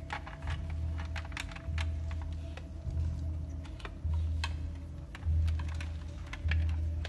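Film sound design: a low throb repeating a little slower than once a second, under many scattered quick clicks and a faint steady tone.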